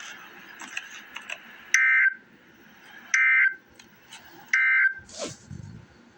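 Emergency Alert System end-of-message signal: three short, identical bursts of buzzy SAME data tones, about a second and a half apart. A brief falling sweep with a low rumble follows near the end.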